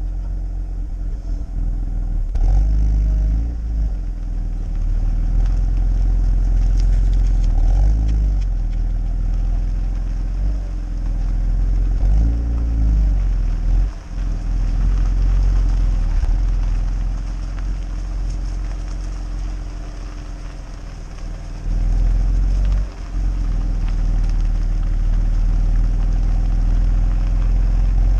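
BMW E92 325i's 2.5-litre N52B25 inline-six running through a BMW Performance rear silencer, with several short throttle blips whose pitch rises and falls in the first half.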